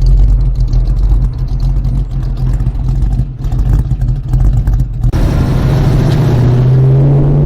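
Ford Mustang engine and exhaust rumbling at low revs. About five seconds in the sound changes abruptly, and the engine's pitch then climbs steadily as the car accelerates.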